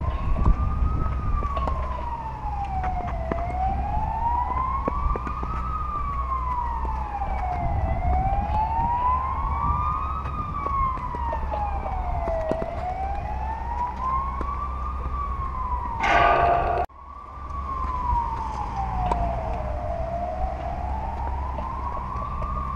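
A siren wailing, its pitch rising and falling slowly about every four and a half seconds, over a steady low rumble. About sixteen seconds in, a brief loud rush of noise is followed by the sound cutting out for a split second before the wail carries on.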